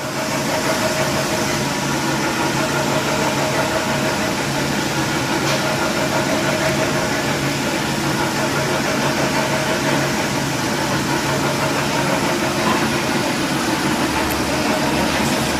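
Magellan boxmaker running steadily under power: a constant machine hum with a couple of held tones, unchanging throughout.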